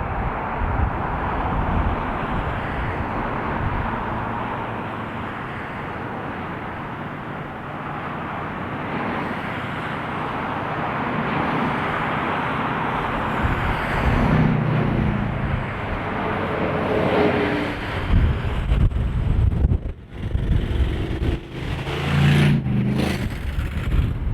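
Steady road traffic, cars and trucks passing one after another, with a vehicle's engine hum swelling and fading in the middle. Near the end, gusts of wind buffet the microphone.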